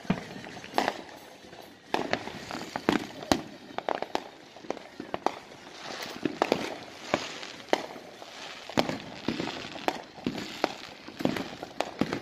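Neighbourhood fireworks and firecrackers going off in an irregular string of sharp pops and bangs, several a second, over a steady hiss.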